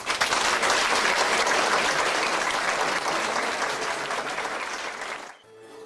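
Audience and performers applauding, a dense steady clapping that cuts off suddenly near the end.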